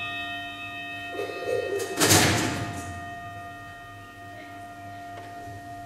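Altar bell rung at the elevation of the chalice during Mass: a ringing bell tone hangs on and slowly fades, with a second, louder jangling strike about two seconds in.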